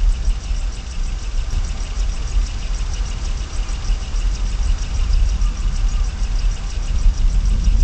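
Steady, loud low rumble picked up by the outdoor nest-cam microphone, with a faint rapid ticking running through it.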